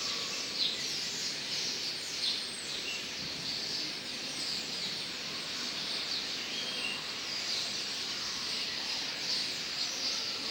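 A large flock of common starlings chattering, with many short, high chirps overlapping one another over a steady background hiss.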